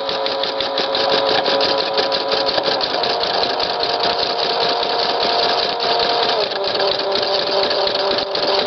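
Domestic embroidery machine stitching a butterfly design into fabric held in its hoop. Its rapid needle strokes run over a steady motor hum that shifts to a new pitch twice.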